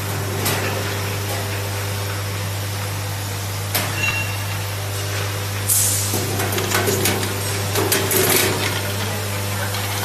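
Syringe assembly machine running, with the steady hum of its vibratory bowl feeder and the clatter of plastic syringe parts. A short hiss comes about six seconds in, then a couple of seconds of quick clicking and rattling.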